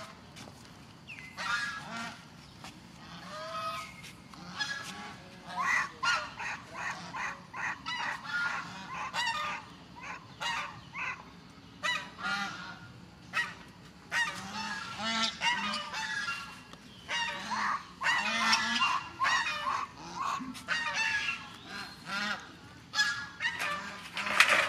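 Baby macaque giving a rapid string of short, shrill, honk-like calls, several a second, which start about a second in and keep going.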